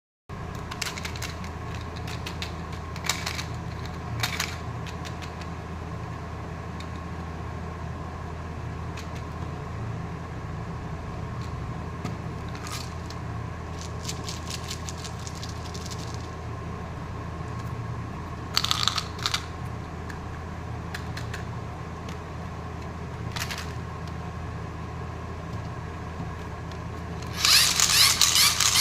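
Plastic candy wrappers and packaging handled, with scattered short crinkles and clicks over a steady low hum, then a loud burst of crinkling and tearing near the end.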